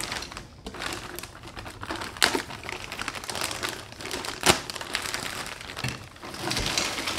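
Plastic bag crinkling and rustling as it is handled and pulled off a turbo kit's up pipe. There are a couple of sharp knocks, about two seconds in and a louder one past the middle.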